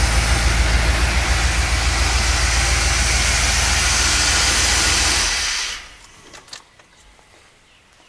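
1982 Corvette's 350 V8 with Cross-Fire throttle-body injection idling steadily, now running on a freshly replaced fuel pump after a crank-no-start fault. About five and a half seconds in the engine is switched off and dies away quickly, leaving a few faint clicks.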